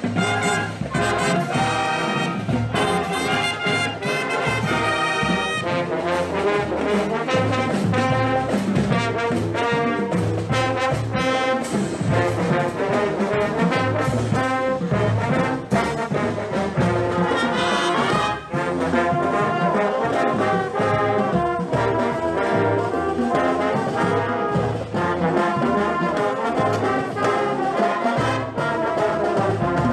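Marching band playing a brass tune with saxophones over a drumline of snare, tenor and bass drums beating steadily.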